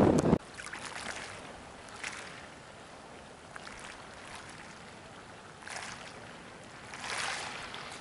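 Small sea waves lapping, an even wash with soft surges about two seconds in and twice near the end. Wind buffets the microphone for a moment at the very start before cutting off.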